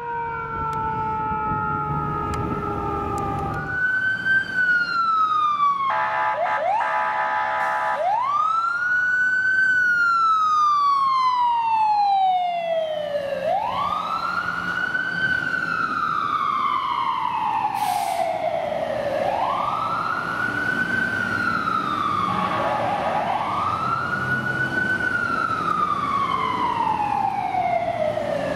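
An emergency siren winding down in a falling glide. A few seconds in, it gives way to an ambulance's electronic wail siren, rising quickly and falling slowly in cycles about every five seconds, with a short horn blast early on.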